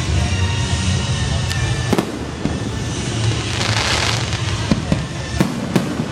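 Fireworks display: sharp bangs of shells bursting, about two seconds in and twice near the end, over continuous crackling and a hissing burst midway.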